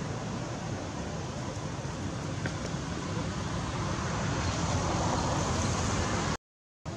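Steady rushing outdoor background noise, with no distinct events, growing a little louder a few seconds in.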